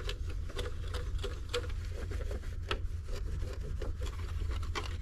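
Plastic polish being hand-rubbed on a scuffed clear plastic instrument-cluster lens: a run of irregular scrubbing strokes over a steady low hum.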